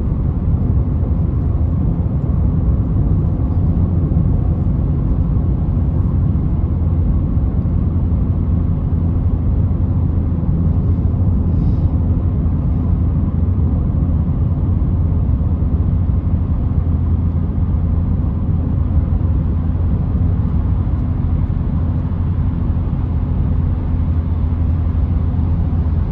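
Steady drone inside the cabin of a Citroën C3 1.4 VTi 95 running at a constant pace: its 1.4-litre four-cylinder petrol engine blended with road and tyre noise, with a low hum that holds one pitch and never rises or falls.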